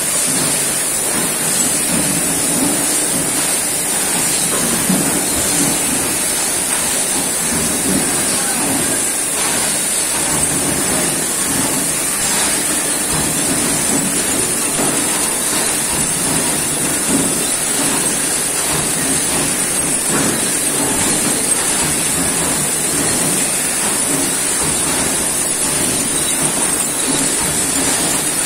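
Bottling-line machinery running: slat-chain bottle conveyors and a labeling machine make a steady mechanical din with faint scattered clicks and a constant high-pitched hiss.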